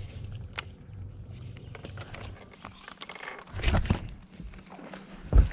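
A low steady hum, then about three and a half seconds in a burst of knocking and rubbing as a hand handles the camera, and one heavy low thump near the end.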